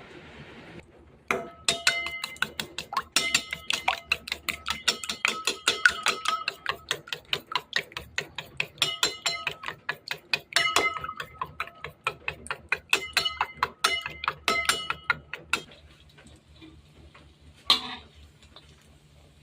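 A metal utensil clinking rapidly against a ringing metal bowl, several strokes a second in runs with short pauses, as in mixing food. It stops about three-quarters of the way through, and one last clink comes near the end.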